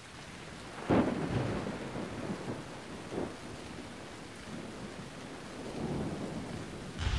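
Steady rain with thunder: a sharp thunderclap about a second in, then softer rolling rumbles.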